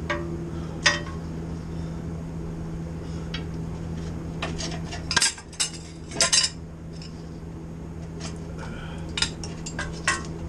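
Metal tools and parts clinking and clanking in a series of sharp, irregular knocks, busiest a little past the middle, over a steady low hum that cuts off about halfway through.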